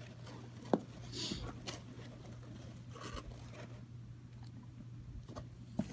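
Shipping box and packing material being handled and pulled apart: short scraping, tearing sounds with a sharp click under a second in, over a steady low hum.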